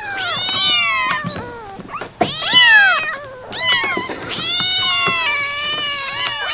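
Cats meowing: a run of loud, drawn-out meows, each rising and then falling in pitch, with two calls overlapping near the start and a long one from about halfway to the end.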